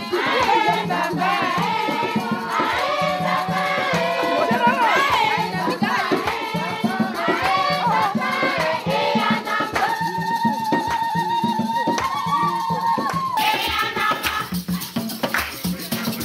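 A group of women singing a traditional song together, over a shaken rattle and a steady low drum beat; about ten seconds in one voice holds a long note for a few seconds.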